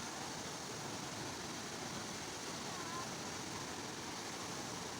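Steady rushing of a waterfall, an even wash of water noise, with a faint short chirp about three seconds in.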